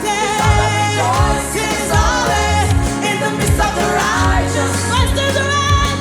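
Music: a song with a lead singer over a steady beat and bass line.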